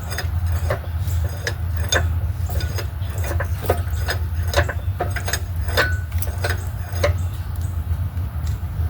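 Irregular metallic clicks and knocks from hand tools and parts being handled during engine and transmission assembly, over a steady low hum.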